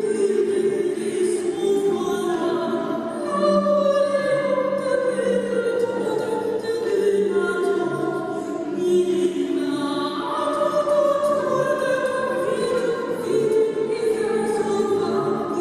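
Figure skating short-program music playing steadily: classical music with sustained, slowly gliding singing voices.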